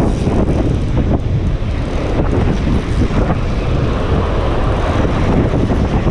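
Strong wind buffeting the microphone: a loud, heavy rumble that swells and drops with the gusts.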